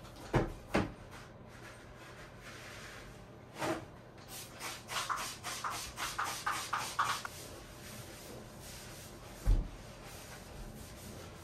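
Paper towel wiping and scrubbing a fiberglass bathtub surface with spray cleaner: two sharp knocks near the start, then about three seconds of quick rubbing strokes, roughly four a second, and a single low thump near the end.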